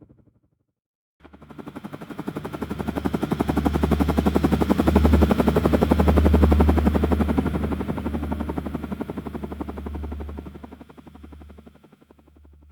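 Helicopter flying past: a rapid, even rotor chop starts about a second in, grows louder to a peak around the middle, then fades away.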